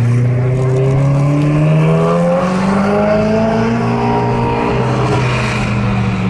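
Ferrari 488 Spider's twin-turbo V8 with a Novitec exhaust, running loud. The note climbs in pitch for about three seconds, then slowly eases back down.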